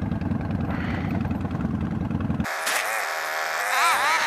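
Motorcycle riding noise, the Honda Magna's V4 engine running under heavy wind rumble. About two-thirds of the way in the rumble cuts off abruptly, giving way to a high, wavering pitched sound whose pitch bends up and down.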